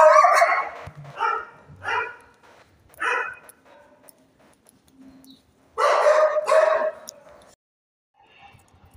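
Shelter dog barking from its kennel: a loud bark at the start, then single barks spaced out over the next few seconds, and two barks close together about six seconds in.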